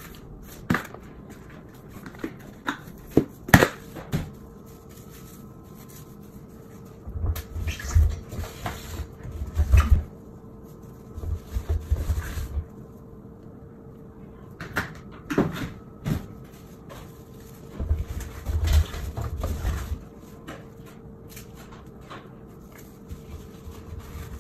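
A few sharp clicks and snaps from a plastic canister of disinfecting wipes, then irregular bouts of rubbing, wiping and dull bumps as hands wipe inside a front-loading washer's drum and rubber door gasket.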